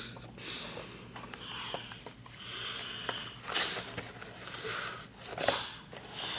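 Cardboard boxes handled and set down on carpet: light taps and clicks with two short rustling swishes, about three and a half and five and a half seconds in.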